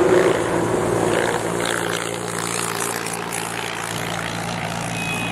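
Road vehicle engines running close by: a truck's engine drone, loudest at the start and easing off as it moves away, with a steady engine hum carrying on as another motor vehicle comes up.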